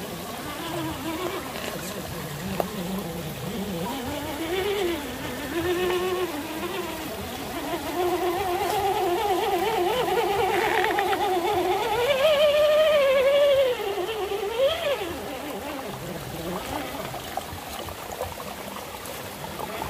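Traxxas TRX-4 Defender RC crawler's electric motor and gearbox whining, the pitch rising and falling with the throttle. It climbs to its highest and loudest about twelve seconds in, then drops away.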